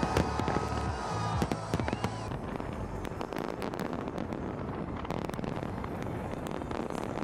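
Fireworks display: rapid, irregular bangs and crackling from bursting shells, with music audible in the first couple of seconds.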